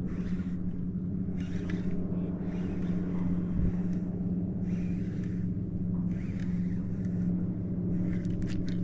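A steady low motor hum, with a swish of water coming in regular strokes about every second or so as the kayak moves across the lake.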